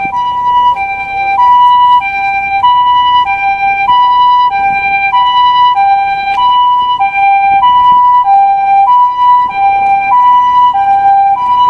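Two-tone hi-lo ambulance siren close by, switching steadily between a higher and a lower note about every two-thirds of a second, the Japanese "pee-poh" pattern.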